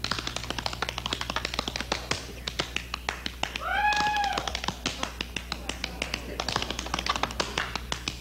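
Tap shoes striking a hard stage floor in fast, dense runs of tap-dance steps. About four seconds in, a short high cry rises and falls in pitch over the taps.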